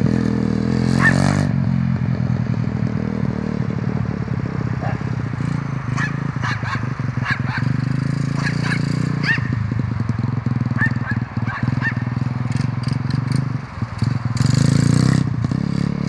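125cc pit bike engine running as the bike is ridden around, its pitch rising and falling with the throttle. It gets louder for about a second near the end.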